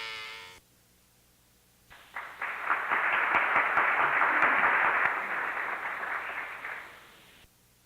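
Applause sound effect: a crowd's clapping that swells in about two seconds in, holds, and fades out near the end. Before it, a held, pitched cry-like sound ends about half a second in.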